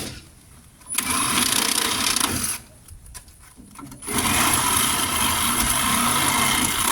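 Reciprocating saw with a demolition blade cutting through the nails between a pallet's deck board and stringer. It runs in spells: it starts about a second in, stops after about a second and a half, then starts again about four seconds in and keeps running.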